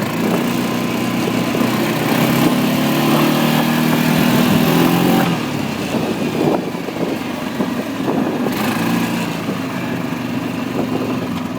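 1997 Kawasaki Prairie 400 4x4 ATV's single-cylinder four-stroke engine running under way. It pulls hard for about five seconds, eases off, and picks up briefly again near nine seconds.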